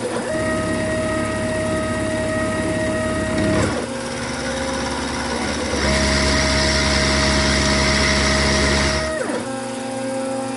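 Milling machine cutting cast iron with a 1/4-inch ball end mill: a steady motor whine that changes pitch abruptly about every three seconds, louder and harsher from about six to nine seconds in.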